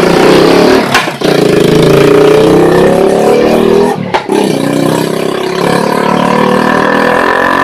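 A motorcycle with a very loud aftermarket exhaust running and revving, its engine note rising and falling, then holding steadier.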